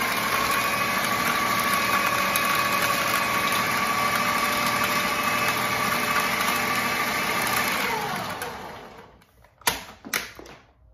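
Ninja countertop food processor running steadily on its lowest speed with a steady whine, chopping a mix of oyster mushrooms and crackers. It is switched off about eight seconds in and winds down with a falling pitch, followed by two sharp plastic clacks as the lid is unlocked and lifted.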